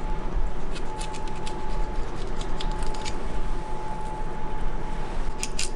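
Fillet knife working along the second side of a Spanish mackerel: a run of small ticks and clicks as the blade passes over the soft bones, then a few more near the end, over a steady hum.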